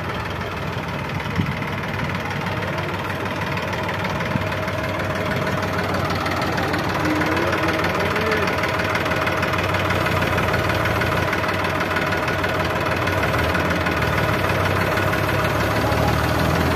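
Massey Ferguson tractor's diesel engine running steadily while the tractor sits bogged in mud, getting a little louder from about six seconds in.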